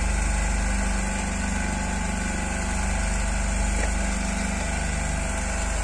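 Fishing boat's engine running steadily at idle, an even low hum that holds one pitch.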